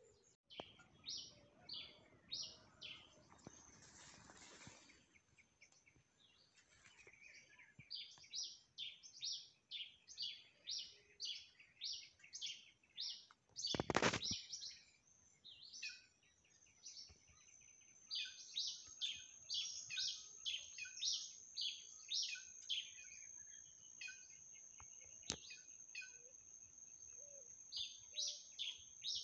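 Wild birds calling: runs of short, high chirps repeated about twice a second, with a steady high-pitched whine joining about halfway through. A brief loud bump interrupts near the middle.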